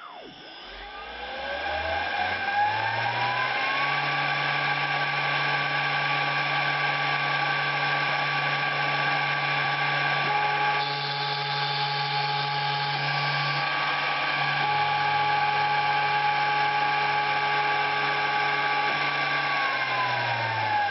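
CNC mill spindle whining as it spins up over the first few seconds, running at steady speed, then spinning down near the end.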